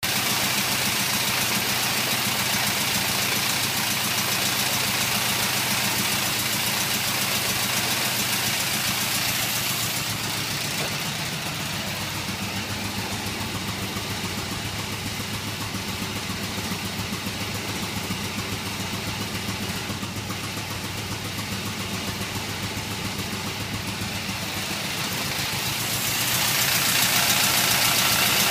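Triumph TR four-cylinder engine on freshly rebuilt twin Stromberg CD175 carburettors, idling steadily with no hunting. It comes in suddenly, eases a little quieter about ten seconds in, and gets louder again near the end.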